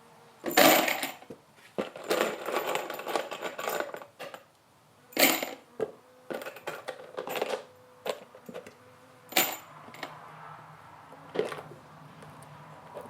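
Steel deck screws clinking and rattling as they are dropped into a plastic organizer cubby, in separate short rattles with pauses between.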